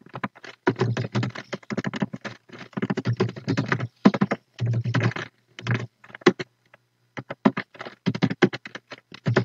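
Typing on a computer keyboard: rapid runs of keystrokes with a short pause a little past halfway.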